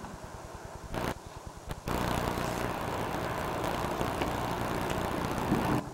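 A small motor running steadily, most likely a boat motor. It is fainter at first, drops out briefly about a second in, then comes back louder and keeps running evenly.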